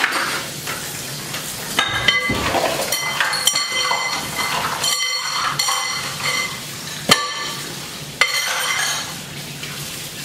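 Metal kitchen utensils and dishes being handled on a counter: a string of sharp clinks, some ringing briefly, over rustling and scraping, with the sharpest clink about seven seconds in.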